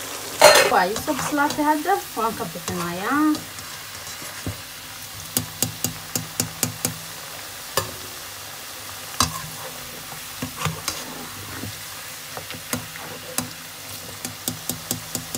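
Potato sticks frying in hot oil in a wok: a steady sizzle broken by many sharp clicks and scrapes as a metal spoon stirs and lifts them against the pan. A brief voice sounds in the first few seconds.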